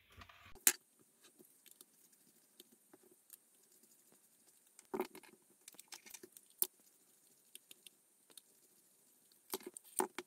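Scattered light clicks, taps and scrapes of small plastic shaver parts and a screwdriver being handled on a silicone work mat as a cordless shaver is taken apart. One sharper click comes under a second in, with small clusters of taps near the middle and near the end.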